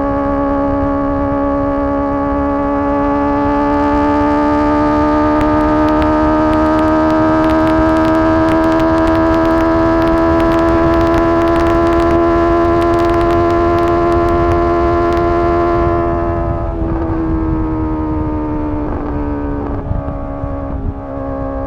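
Honda CBR650R inline-four with a MIVV MK3 carbon exhaust, pulling at high revs, its pitch climbing slowly and steadily for about sixteen seconds. The pitch then drops as the throttle eases off, with a few short dips near the end, over wind rush.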